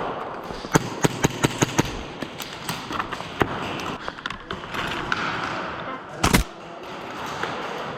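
Airsoft guns firing: a quick string of about six sharp shots about a second in, then scattered single shots, and a heavy thump a little after six seconds.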